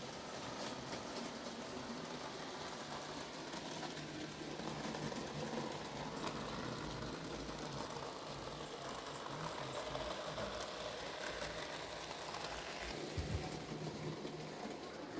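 N-scale model trains running on the layout: a steady whir of small electric motors with a few faint clicks from the track.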